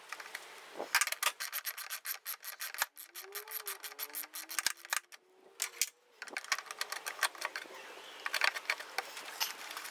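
A hand tool working a bolt loose on the air cleaner box of a Nissan Navara D22, making irregular quick runs of small metallic clicks and rubbing, with a short pause about halfway through.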